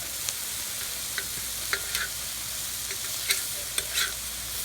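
Sliced onions and yellow squash sizzling in hot peanut oil and butter in a wok: a steady hiss with scattered sharp pops and ticks.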